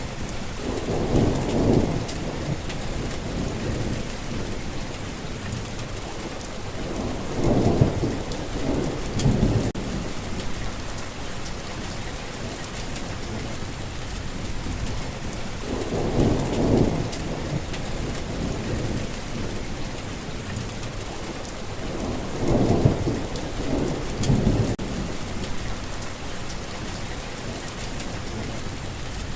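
Steady rain falling, with short low rumbles of thunder rising over it several times, some in pairs.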